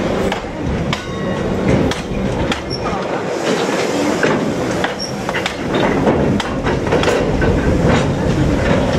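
A long rake of Hanson JHA bogie aggregate hopper wagons rolling past close by: a steady rumble broken by irregular clanks and clicks of the wheels on the track, with brief faint wheel squeals.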